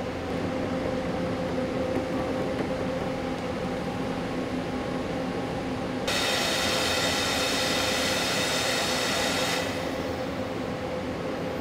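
Industrial food-processing machine running with a steady mechanical hum. From about six to nine and a half seconds in, a higher whine and hiss join it.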